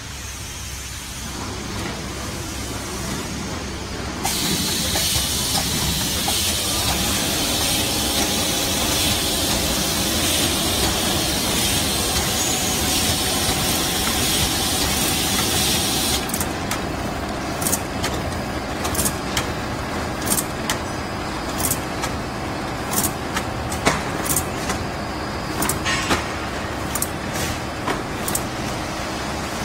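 A cling film roll cartoning machine running, with a steady mechanical clatter. A loud steady hiss starts about four seconds in and stops abruptly at about sixteen seconds. After that come repeated sharp clicks, a little over one a second, as the machine cycles.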